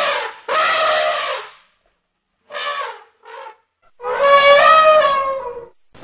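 Elephant trumpeting in a series of calls: two of about a second each at the start, two short ones in the middle, and the longest and loudest, nearly two seconds, near the end.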